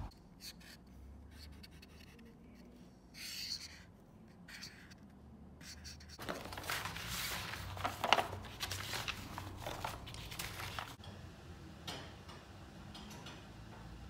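Dry scraping and rustling of hands at work: a palm rubbing paint across a stretched canvas in short strokes, then a stack of paper sheets being leafed through, a denser run of rustling with one sharp loudest rustle a little past the middle.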